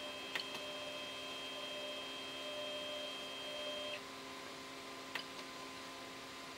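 Flying Bear P902 3D printer humming steadily, with a thin high whine that cuts off about four seconds in, leaving a lower steady hum; a couple of faint clicks.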